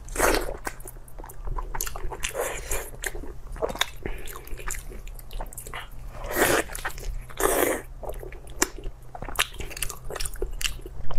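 Close-miked eating sounds: a person biting, chewing and sucking on sticky, sauce-coated braised pork, in wet smacking mouth noises at an irregular pace. There are louder bites just after the start and about six and a half and seven and a half seconds in.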